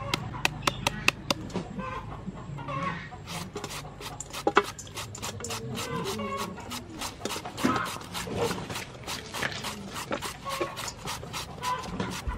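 A knife chopping quick repeated strokes into a hand-held unripe mango, then a toothed shredder scraping strands off it into a steel bowl in rapid even strokes from about two seconds in. Chickens cluck in the background.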